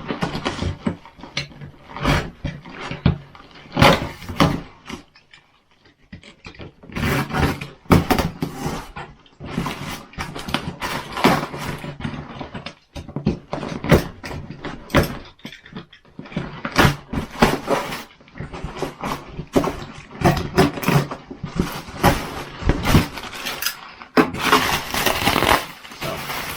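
A cardboard parcel being opened and its packaging handled by hand: irregular scraping, crinkling and knocks, with a denser stretch of rustling near the end.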